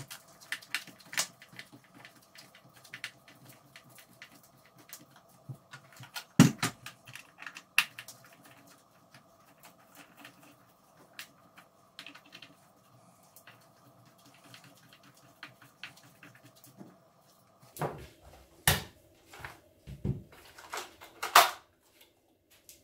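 Scattered light clicks and knocks of a T-handle screwdriver turning screws into the plastic housing of a Paslode IM350 nail gun, and of the gun and tools being handled. There is one sharper knock about six seconds in and a run of knocks near the end, over a faint steady hum.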